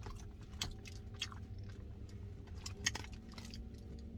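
Close-up chewing of a grilled mac and cheese sandwich, with a few sharp crunchy clicks from the toasted bread, over a steady low hum.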